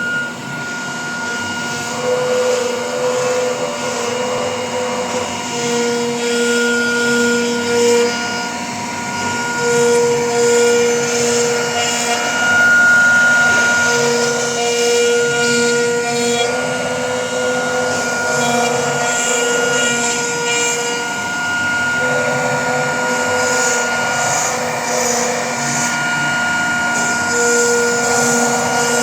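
CNC router cutting a jali lattice pattern: a steady motor whine under a noisy hum, with pitched tones that start and stop every second or two as the machine moves from cut to cut.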